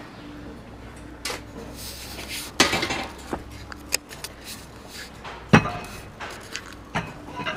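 Rebar being tied by hand with wire and a hooked tie tool: a handful of sharp metallic clinks and knocks of steel on steel, spread out, the loudest about five and a half seconds in.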